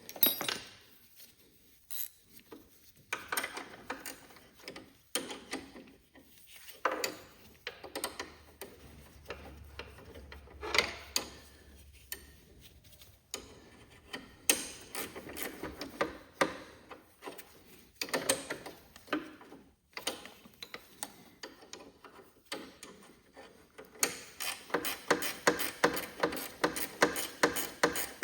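Ratchet wrench clicking in short bursts as bolts are turned, then a fast, steady run of clicks over the last few seconds.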